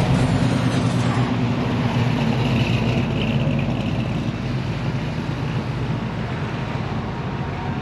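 A motor vehicle's engine running steadily with road noise: a constant low drone with no clear change in pitch.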